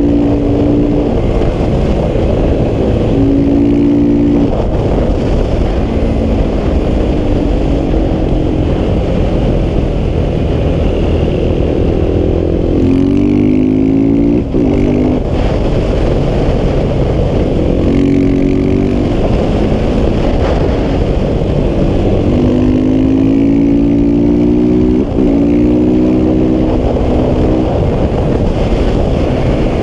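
KTM 690 SMC R single-cylinder supermoto engine with a Wings aftermarket exhaust, ridden hard on track. The engine revs rise and fall through the lap, and twice, about halfway through and near the end, a climbing rev breaks off with a brief dip in the sound.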